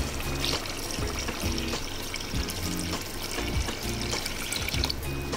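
Water being poured into a pot of cooking mutton curry, over background music with a steady beat.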